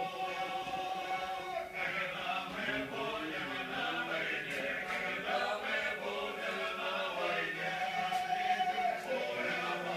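A choir singing a song in long, held notes.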